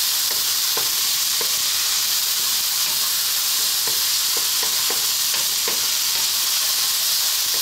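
Diced carrots, potato and onion sizzling in hot oil in a wok, stirred with a wooden spatula that scrapes and taps against the pan every second or so.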